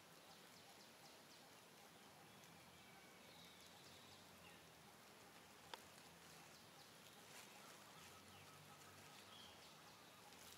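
Near silence: faint outdoor ambience with a few faint chirps and a single sharp click a little past halfway.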